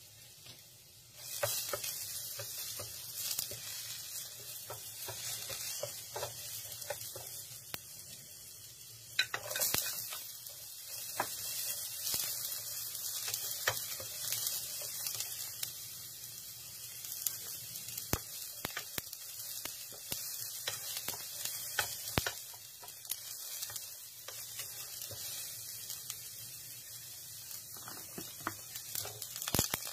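Chopped garlic, ginger and onion sautéing in hot oil in a nonstick pan, sizzling steadily, with a spatula scraping and clicking against the pan as it stirs. The sizzle starts about a second in and flares up about nine seconds in.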